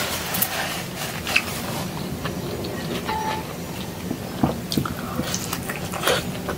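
Close-up mouth sounds of a person eating soft food by hand, tomato with chicken: chewing with a few short wet clicks and smacks scattered through, over a low steady hum.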